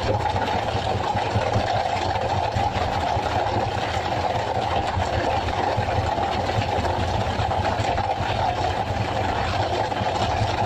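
Fishing boat's engine running steadily at a constant pitch and level, a continuous drone.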